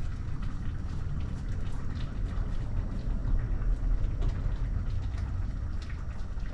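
Food sizzling on a gas stovetop: a steady crackle with many scattered small pops over a low rumble.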